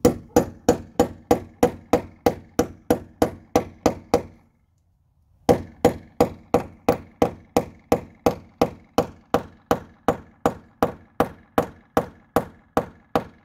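Claw hammer striking a steel bolt to drive it into a drilled hole in a brick wall: a steady run of sharp blows about four a second, each leaving a faint metallic ring. The blows stop for about a second a third of the way in, then carry on.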